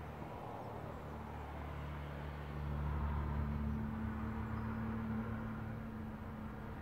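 Low, steady engine hum of a motor vehicle, growing louder a couple of seconds in and easing off toward the end.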